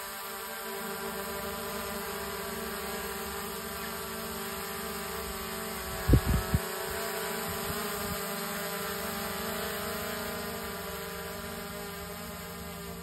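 DJI Mini 4 Pro quadcopter hovering close overhead, its four propellers making a steady buzzing whine of many even tones. A few brief low thumps come about six seconds in, and the whine eases slightly near the end as the drone climbs away.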